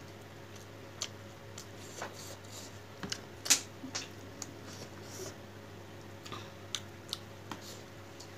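Close-up eating sounds of someone eating fish curry: irregular mouth clicks and smacks of chewing, the loudest about three and a half seconds in, over a faint steady hum.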